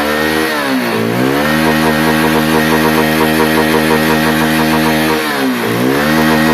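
Small motorcycle engine running just after a bump start. It is revved up and held at raised revs, drops back briefly about a second in and again around five seconds, then climbs once more. There is no tappet ticking, which the mechanic takes as the sign of over-tight valves with no clearance.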